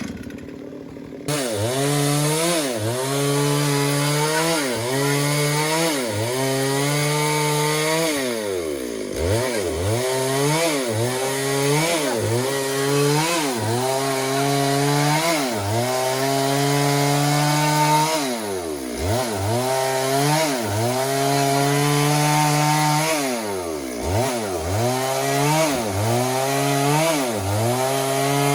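Stihl MS 382 two-stroke chainsaw revving up and down over and over, about once a second, with a few longer stretches held at high revs. It is briefly quieter at the start and jumps to full revs about a second in.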